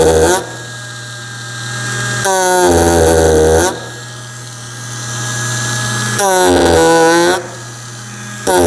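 Ryobi 4-volt power carver fitted with a straight chisel, cutting into pine in short loud bursts of about a second each as the press-to-activate tip is pushed into the wood. A quieter steady hum carries on between the cuts.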